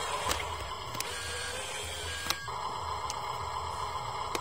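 Whine of a radio-controlled construction model's small electric motor and plastic gearbox, with a few sharp clicks. About halfway through, the whine steps up and holds steadier.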